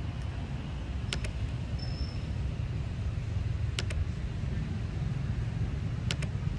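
Steady low outdoor rumble, like distant traffic or wind on the microphone. It is broken by three pairs of sharp clicks a little over two seconds apart, and a brief high chirp comes about two seconds in.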